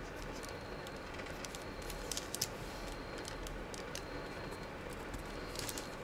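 Fingers handling and pressing small glued pieces of book-page paper: a few faint paper crinkles and ticks about two seconds in and again near the end, over a steady low room hum.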